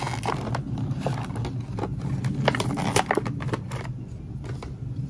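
Plastic packaging crinkling and crackling in the hands as a knife and its hard plastic sheath are unwrapped from a clear plastic bag, with scattered sharp clicks of plastic. A steady low hum runs underneath.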